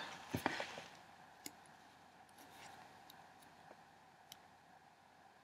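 A few faint clicks and taps of a tobacco tin being handled on a desk, the sharpest about half a second in.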